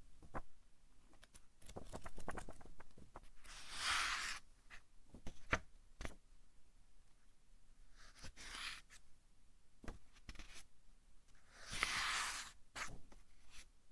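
Pages of a thick-papered book being turned by hand: three swishing page turns about four seconds apart, with small paper rustles and taps in between.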